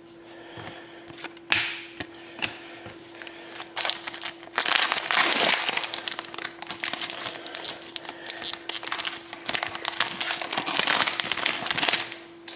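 Hockey card pack wrapper crinkling and tearing as it is opened: a few sharp clicks and rustles at first, then about seven seconds of continuous crinkling.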